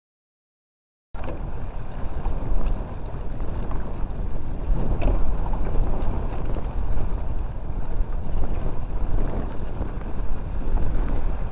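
Silent for about the first second, then wind buffeting the microphone on an open boat on choppy water: a steady, loud, low rumbling noise.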